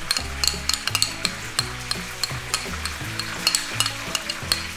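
Battered frog legs frying in hot oil in a pan: a steady sizzle with frequent sharp pops and crackles.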